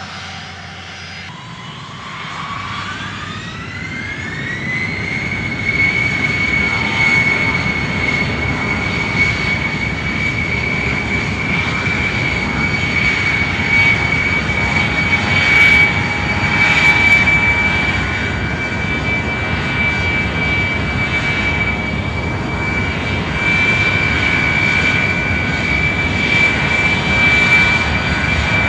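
Whine of a small remote-controlled aircraft's motors and propellers. It rises in pitch over the first few seconds as the craft speeds up low along the runway, then holds a steady high whine over a rushing noise.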